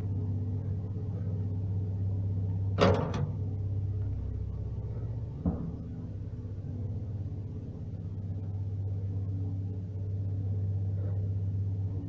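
Steady low hum inside a passenger lift car, with a loud clunk of the lift door about three seconds in and a lighter knock a couple of seconds later.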